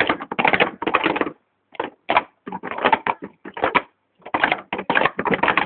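Green Speed Stacks plastic sport-stacking cups clattering on a table as they are rapidly stacked up and down: dense runs of quick clicks and knocks, broken by short pauses.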